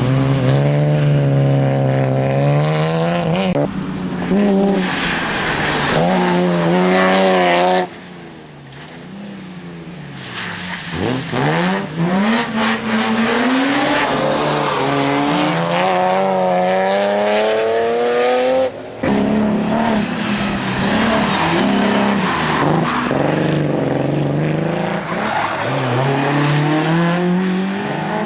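BMW M3 Compact's engine accelerating hard through the gears, its pitch climbing and then dropping at each shift, with a quieter stretch and a falling pitch about eight to eleven seconds in. The engine has a misfire.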